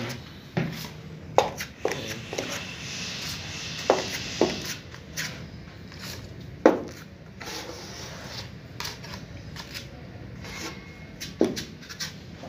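Putty knife spreading and scraping joint compound (masilya) along a wall-to-ceiling board seam, with a few sharp clicks and taps of the blade scattered through it.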